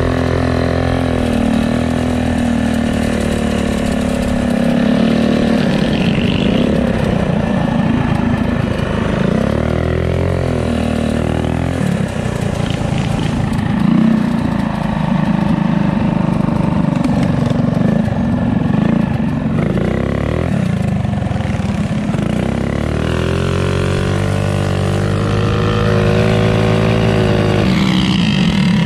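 Mini bike's small single-cylinder engine running hard under the rider, its pitch rising and falling again and again as the throttle is opened and eased off.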